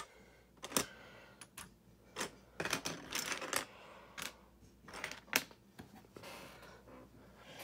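Loose plastic LEGO pieces clicking and clattering as a hand rummages through them, in scattered sharp clicks and short rattles.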